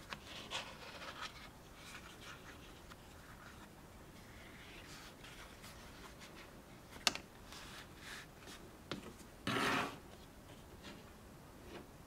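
Leather sheath with brass rivets being handled and flexed in the hands: soft rubbing and scratching of the leather, with a sharp click about seven seconds in and a short, louder rustle near ten seconds.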